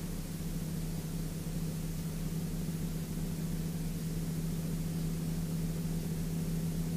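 Steady drone of a Sling 2 light aircraft's engine and propeller in cruise, heard in the cockpit as an even low hum with hiss over it.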